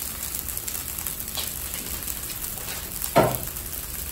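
Lemon rice sizzling softly in a nonstick frying pan, a steady light hiss with the rice left unstirred. A short knock about three seconds in.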